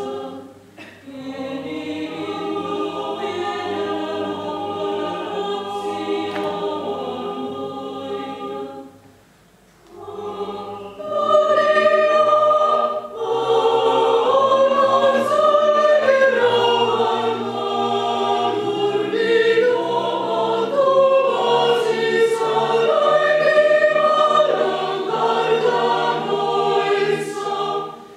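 Mixed choir singing a cappella, men's and women's voices together. The singing stops for a moment about nine seconds in, then comes back louder.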